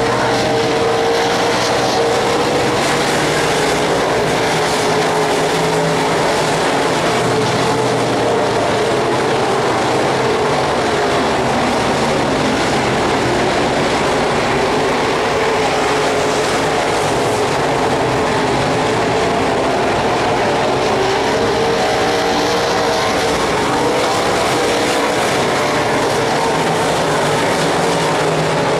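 Engines of dirt-track race cars running laps, a steady drone whose pitch wavers slowly up and down as the cars circle the track.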